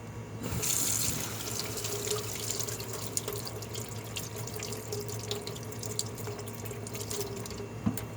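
Kitchen tap running as a few sprigs of fresh mint are rinsed under it. The water comes on about half a second in and goes off shortly before the end.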